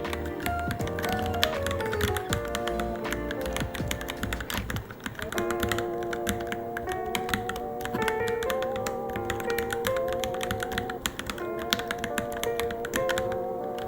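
Fast typing on a Varmilo Minilo mechanical keyboard: a continuous run of quick key clicks, with background music playing along.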